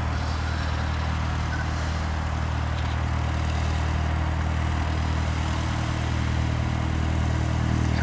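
Cessna 172's piston engine and propeller running steadily as the plane taxis past, growing slightly louder near the end.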